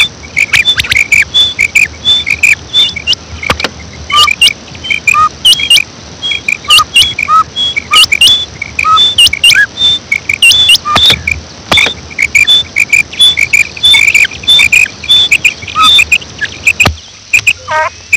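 Female common quail calling: a long run of short, high chirping notes, about two or three a second, with a few sharp clicks among them.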